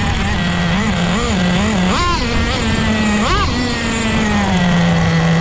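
An RC car's motor running under changing throttle, its pitched note rising and falling in quick blips, with sharp revs about two and three seconds in.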